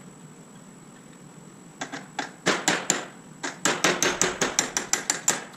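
Hammer striking metal about twenty times in two bursts, starting about two seconds in, with the second burst quicker and steadier: a punch being driven against a roll pin in a T56 six-speed manual transmission during teardown.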